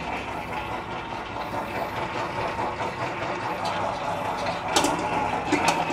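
Electric stand mixer running at low speed, its dough hook kneading bread dough in a stainless steel bowl: a steady motor and gear hum with a faint whine. A couple of brief knocks near the end.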